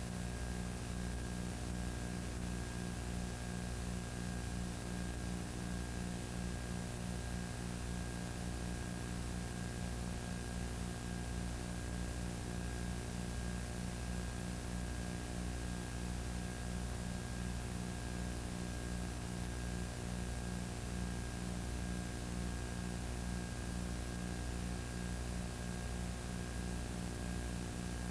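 Steady electrical hum with hiss: the line noise of a recording that carries no actual sound. A fast, even flutter runs through the hum.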